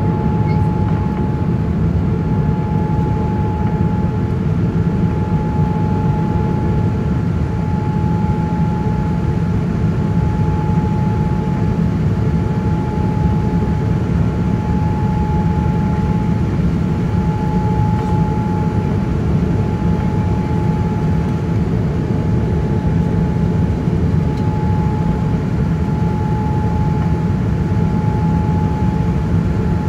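Boeing 787-9 airliner heard from inside the cabin: a steady jet engine and airflow drone with a constant high whine over it.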